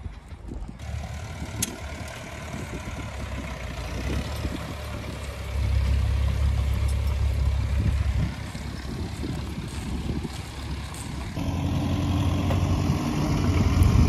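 Tractor engines running as tractors pull ploughs through a field, one close by and louder over the last few seconds.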